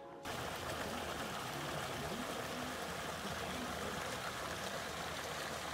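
Steady rush and trickle of running water at a carp pond.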